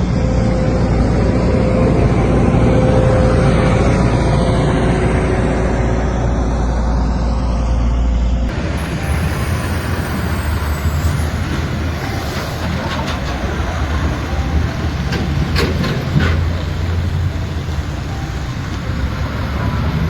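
Heavy snow-clearing machinery running loud and steady, first with a deep rumble and a steady engine tone, then after an abrupt change about a third of the way in, a rougher noise with several sharp knocks.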